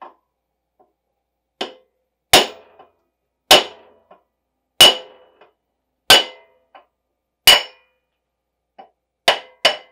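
Hammer blows on a drift driving the cutterhead shaft out of a DeWalt DW735 planer toward its larger bearing. There are about eight sharp strikes, most at a steady pace a little over a second apart, with two lighter taps near the end. Each strike gives a short metallic ring.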